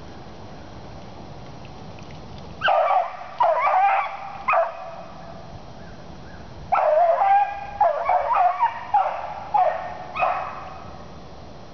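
A lone rabbit-hunting beagle baying as it trails a cottontail: loud bawling barks, a few near the start, then a quicker string of them about halfway through.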